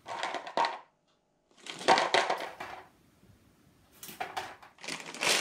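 Pecan nuts poured from a packet onto kitchen scales, a dry rattling rustle in four short bursts.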